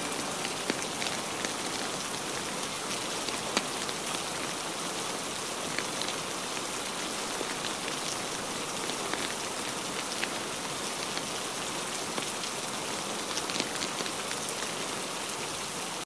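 Steady rain, with scattered sharp crackles from a log fire and one louder pop a few seconds in.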